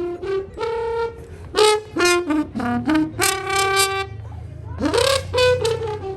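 Music led by a brass instrument, playing a quick tune of short separate notes and ending in a falling run of notes.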